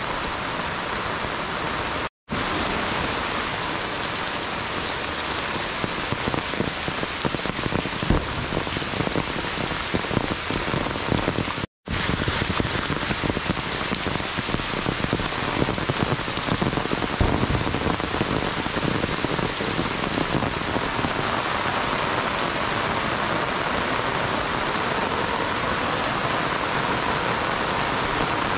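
Heavy monsoon rain falling steadily on trees and a wet dirt road, an even hiss with scattered drop patter. The sound cuts out for an instant twice, about two seconds in and again near twelve seconds.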